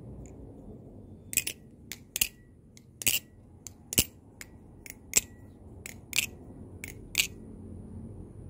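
Balisong (butterfly knife) being flipped: a quick series of sharp metal clicks and clacks as the handles and blade swing around the pivots and strike each other, about two a second, starting a little over a second in and stopping near the end.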